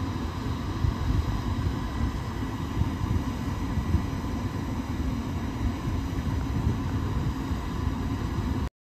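Trenitalia E.464 electric locomotive standing at the platform with its machinery running: a steady low rumble with a steady high electrical whine on top. The sound cuts off suddenly near the end.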